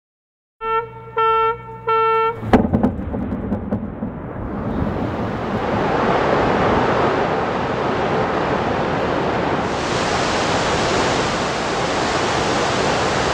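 Three short warning tones, then a sharp explosive blast as a demolition charge breaches a concrete dam. It is followed by a steady rushing of released floodwater that builds over a few seconds and then holds.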